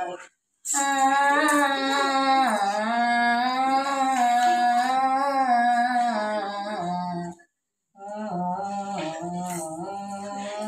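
An elderly woman singing a wordless, wavering melody in a small room: one long phrase, a short break about seven and a half seconds in, then another phrase.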